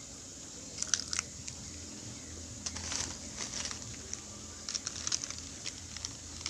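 Plastic packaging crinkling and crackling in short bursts as it is handled, about a second in, around three seconds in and again around five seconds in.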